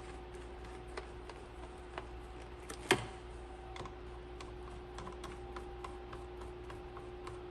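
Light, irregular clicks and ticks as a screwdriver turns the screws holding down the plastic engine air filter box cover, with one sharper click about three seconds in, over a faint steady hum.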